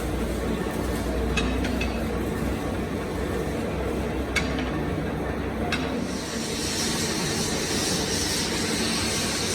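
Machinery running steadily with a low hum, marked by a few sharp metallic clicks. A high hiss comes in about six seconds in.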